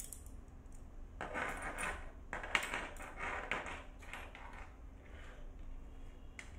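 Small metal manicure tools clinking and rattling as they are handled on a table and fitted into a case, with a cluster of handling noise in the first half and one sharper click about two and a half seconds in.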